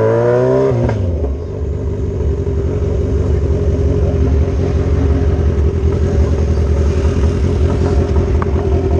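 Kawasaki Z1000's inline-four through an Akrapovic megaphone full exhaust system. The revs fall in the first second as the bike slows, then it settles into a steady, low, pulsing idle.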